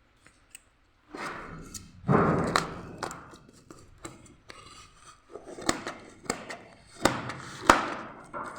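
Handling of a delivery parcel: irregular thuds, taps and clicks with rustling of the packaging, the loudest knocks about two seconds in and near the end.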